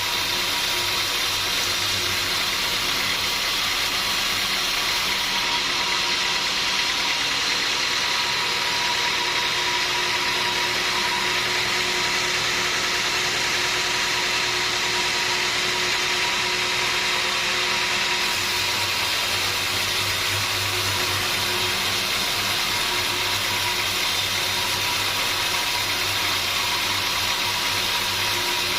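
Sawmill machinery running steadily: an even, dense mechanical noise with a faint steady tone through it.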